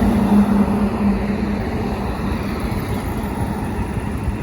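A motor vehicle running, with steady road and engine rumble; a low hum fades away in the first second or so.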